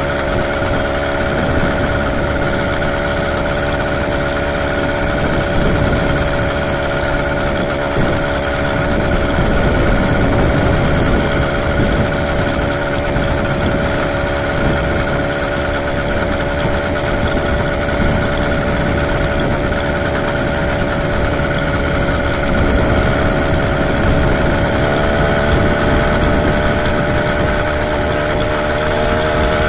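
Small 80cc two-stroke motorized bicycle engine running steadily under way, its pitch rising a little near the end, over a low rumble of wind on the microphone.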